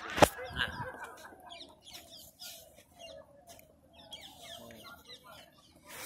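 A flock of gulls calling, many short falling squawks overlapping one another, with one sharp click about a quarter second in.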